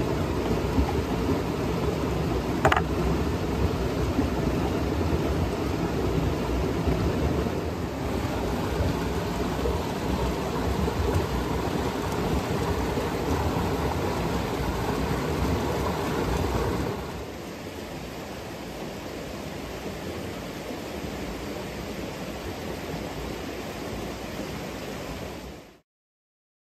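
Steady rushing of a mountain stream. It drops to a quieter level about two-thirds of the way through and cuts off just before the end. A brief high, rising squeak sounds about three seconds in.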